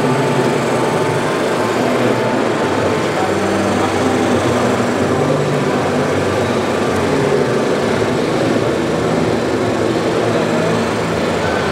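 Hydraulic pump of a 1:12 scale radio-controlled Liebherr 942 crawler excavator running steadily while the arm and bucket dig. Its hum holds several tones that come and go and shift as the hydraulics work.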